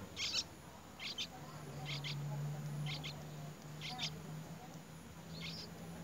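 Short, high chirps from birds at a nest with feeding nestlings, mostly paired and repeating about once a second. A low steady hum runs underneath from about a second and a half in.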